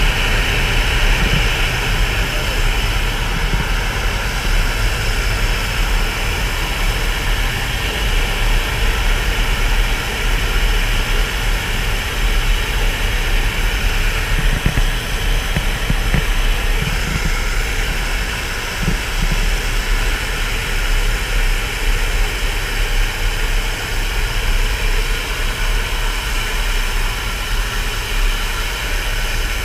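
Steady, loud drone of a jump plane's engine mixed with the rush of air through the open door, heard from inside the crowded cabin.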